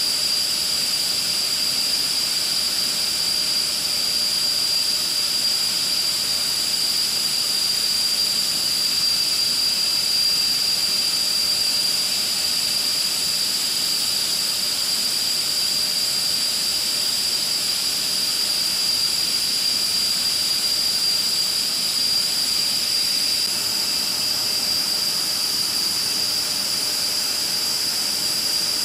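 Panavia Tornado GR4's RB199 turbofan jet engines running steadily on the ground, a constant high-pitched whine over an even hiss.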